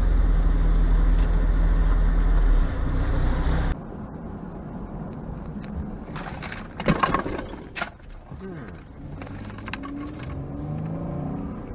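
Car driving, with a loud steady low rumble of engine and road noise inside the cabin that drops off sharply about four seconds in to quieter road noise. About seven seconds in there is a short, sharp, loud noise.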